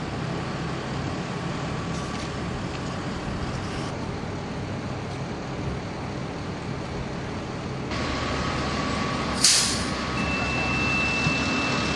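Engines of emergency vehicles idling at the roadside, with one short, loud hiss of an air brake being released about nine and a half seconds in. A steady high tone sounds through the last two seconds.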